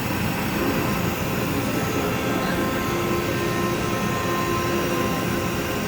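Glassblowing torch flame burning with a steady hissing roar while the glass is reheated.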